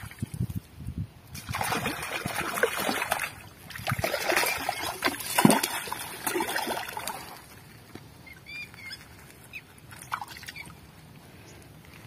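Water splashing and sloshing in two long bouts, the first from about one and a half to three seconds in, the second from about four to seven seconds in with a sharp splash near its middle; quieter afterwards.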